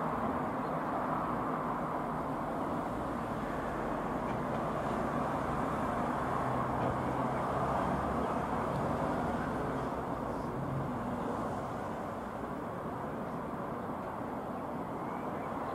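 Jabiru UL-450 light aircraft's four-cylinder engine and propeller droning steadily as it flies overhead.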